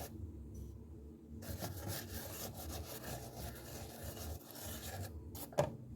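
Faint repeated rubbing as the plates of an electric waffle maker are greased with oil, starting about a second and a half in, with a light knock near the end.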